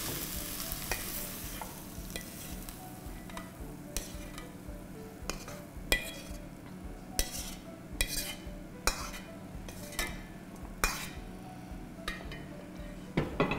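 Stir-fried bell pepper and onion pieces sizzling in a stainless steel pan, the sizzle fading after the first couple of seconds. The pieces are then scraped out with a wooden spoon onto a platter, giving irregular clicks and knocks of spoon on metal pan.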